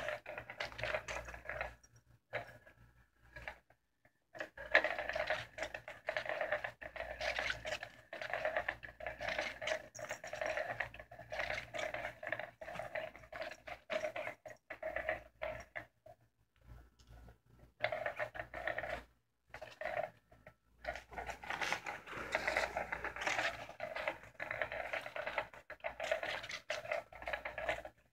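Battery-powered electronic cat toy's small motor whirring under its fabric cover, stopping for a second or two several times before starting again.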